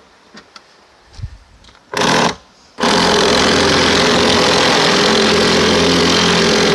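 A handheld power tool gives a short burst about two seconds in, then runs steadily for about four seconds, backing a nut off one of the 9/16 bolts that hold a wire reel together.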